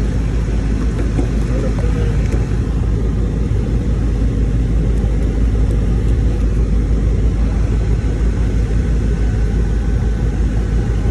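Carrier air-conditioning unit running steadily with its newly replaced condenser fan motor, a constant low rumble of fan and machinery. The motor is drawing about 1.5 to 1.6 amps against a rated 1.8, running normally.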